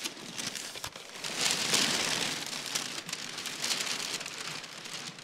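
Heavy brown kraft packing paper rustling and crinkling as it is pulled back and folded aside by hand, loudest about a second and a half in.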